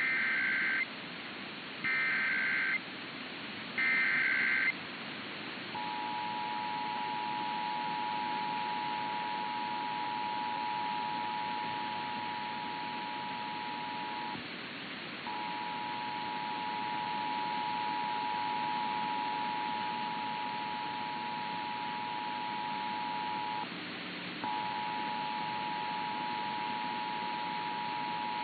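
Emergency Alert System test: three short bursts of the SAME digital data header, about two seconds apart, then the two-tone EAS attention signal, a steady dual tone held for about eight seconds at a time and breaking off briefly twice. A steady hiss runs underneath.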